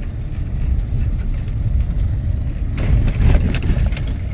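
Vehicle road noise: a steady low rumble of a vehicle driving on a rough road, with a louder stretch of jolting and rattling about three seconds in.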